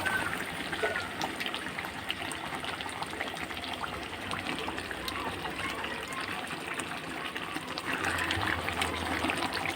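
Chicken pieces in spice paste sizzling and crackling steadily in a hot pan as they are slow-fried for chicken kosha.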